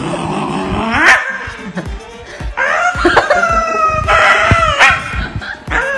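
Shiba Inu screaming in protest, four high-pitched drawn-out cries with bending pitch, the first rising sharply. It is being held for a trim and has not been cut yet, only touched: a dramatic protest scream, not a cry of pain.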